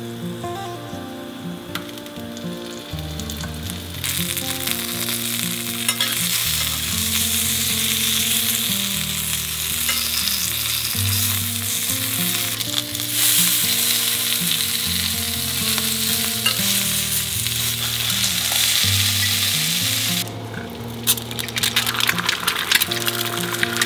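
Vegetables sizzling in hot oil in a Staub cast-iron pan, the sizzle rising to a steady loud hiss about four seconds in. Near the end it gives way to the sharper crackle and spitting of an egg frying.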